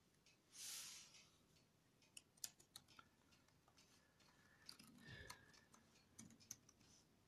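Faint, scattered key clicks from typing on the Asus Vivobook F510UA laptop keyboard, with a short hiss about a second in and a soft thump around five seconds in.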